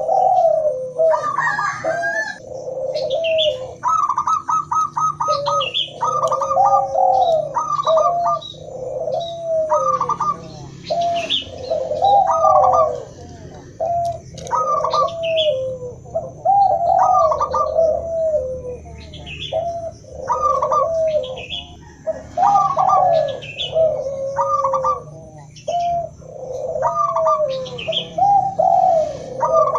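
Several doves cooing over one another in repeated, overlapping phrases: a mix of zebra dove (perkutut), spotted dove (derkuku) and Barbary dove (puter). A quick run of short notes comes about four seconds in, and fainter higher chirps run between the coos.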